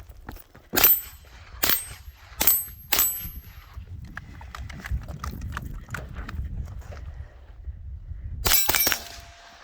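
AR-style .22 LR rifle firing: four shots about a second apart, each followed by a thin metallic ring of a hit on steel, then a fast string of four or five shots with ringing near the end. Running footsteps patter between the strings.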